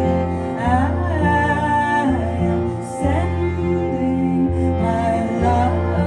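A woman singing a slow, gliding melody live with cello accompaniment, over long held low notes that change about every one and a half seconds.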